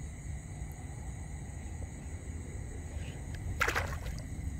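A low, steady rumble, then a short splash about three and a half seconds in as a hand plunges into shallow water.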